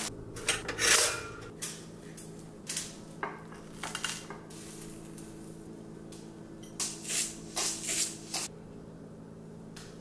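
Kitchen food-prep sounds: short clinks and scrapes of cutlery against a ceramic plate, in scattered clusters, with a plastic bread bag rustling in the first second. A faint steady hum runs underneath.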